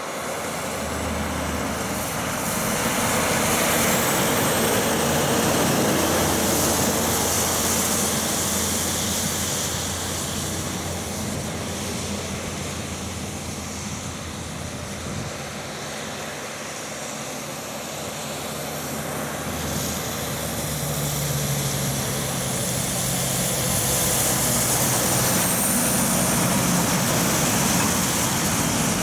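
Heavy trucks with trailers driving past one after another on a wet road: diesel engines running and tyre noise, loudest about four to eight seconds in and again near the end. A faint high whistle slides in pitch over the top.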